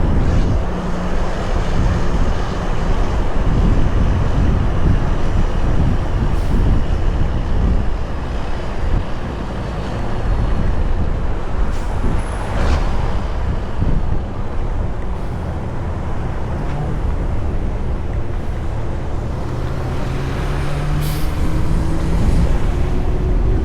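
Diesel engine of a heavy truck running under load with constant road rumble, hauling a 129,000 lb combined weight. Over the last several seconds the engine note climbs in pitch as it pulls through the gears, with a couple of short air hisses along the way.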